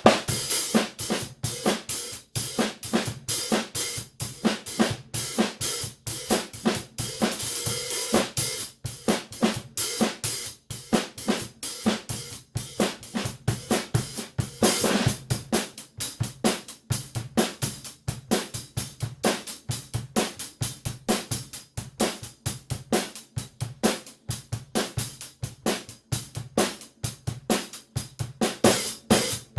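Drum kit played in a steady groove, with 14-inch Zildjian K Sweet hi-hats ticking over snare and bass drum. Longer bright cymbal washes come twice, about a quarter of the way in and about halfway.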